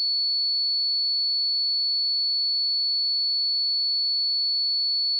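A pure 4428 Hz sine-wave test tone, one steady high-pitched note held at constant level.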